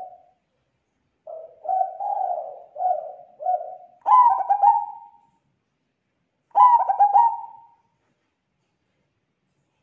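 Zebra dove cooing. About a second in comes a run of about five soft, low coos, then two louder, higher, stuttering trilled phrases a couple of seconds apart, each about a second long.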